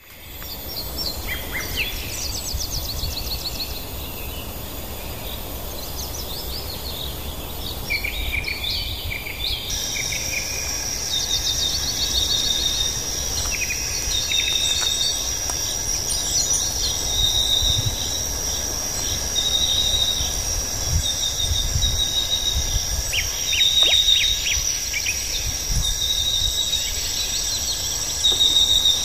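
Forest ambience: birds calling and insects chirping, with a steady high insect drone that sets in about a third of the way through. A short call repeats every second or two, over a low rumble.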